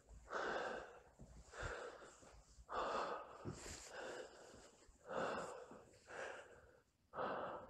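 A person breathing heavily close to the microphone, a faint breath roughly every second.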